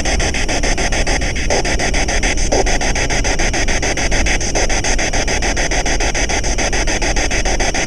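Steady, dense rasping noise with a fast even pulse running through it; no single event stands out.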